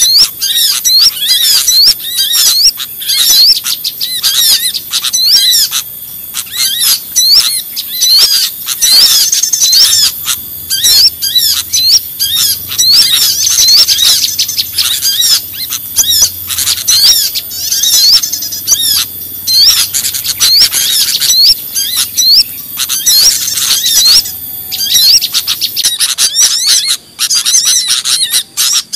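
Bird-lure (pikat) recording of many small birds calling at once: a dense, unbroken chorus of rapid high-pitched chirps and twitters, the noisy calling used to draw small birds in.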